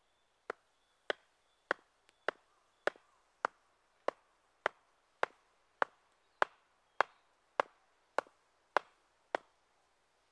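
Small axe striking the top of an upright wooden stake, driving it into the ground: sixteen sharp wooden knocks at an even pace of just under two a second.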